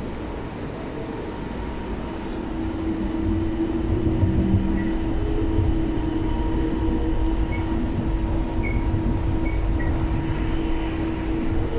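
Cabin noise of a rubber-tyred automated people-mover train running along its elevated guideway: a steady drone with a humming tone, growing louder about three seconds in.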